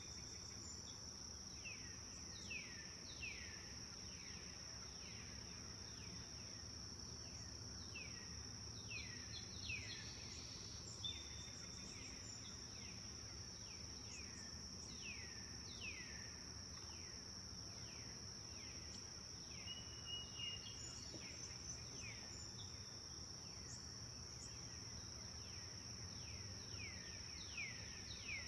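Forest birds calling in quick, downward-sweeping notes that come in runs, over a steady high-pitched insect drone that never stops.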